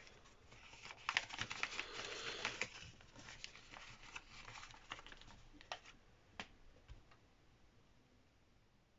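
Folded paper being opened out and handled, crinkling and rustling with quick little crackles, busiest in the first few seconds, then a few separate crackles and fading away near the end.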